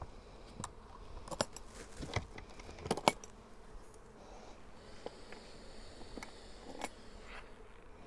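A wooden Bienenkiste hive box being opened: wood and metal fittings knock and click as its floor panel is worked loose, with the sharpest knocks about two to three seconds in. Honeybees hum faintly underneath.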